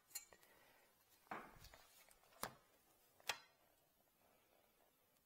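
Four faint taps and clicks as an L-shaped square ruler is shifted and set down on a corflute plastic sheet.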